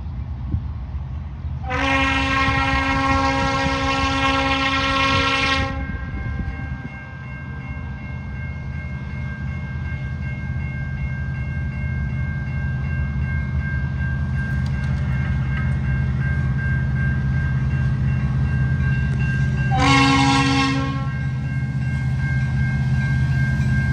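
Freight train rolling past with a steady low rumble. A diesel locomotive air horn sounds one long blast of about four seconds, then a short blast of about a second near the end.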